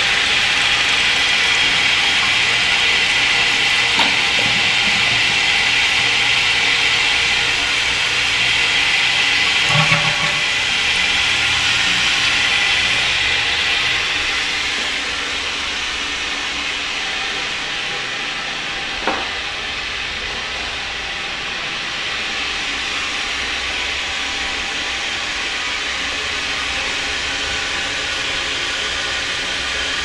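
A Korky fill valve in a 1960s American Standard Glenwall toilet tank hissing steadily as water refills the tank after a flush. The hiss gets quieter about halfway through, and there are a few brief knocks.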